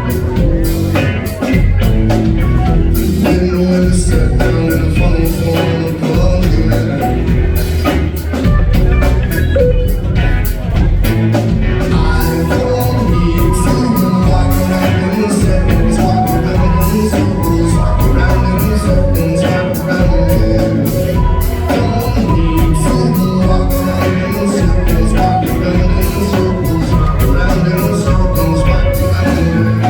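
Live rock band playing at full volume, with a steady drum beat under bass, sustained instrument notes and singing.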